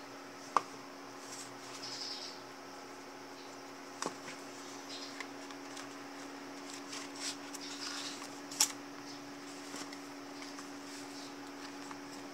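Handling noises as a notebook is fitted into a faux leather cover: a few sharp taps, the loudest about half a second in and again near the end, and soft rustling of paper and cover. A steady low hum sits underneath.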